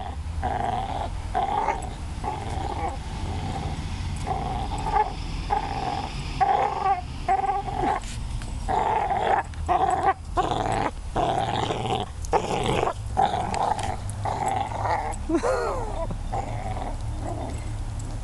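A dog growling in repeated short bursts through a mouthful of rope while hanging from and tugging on a rope toy.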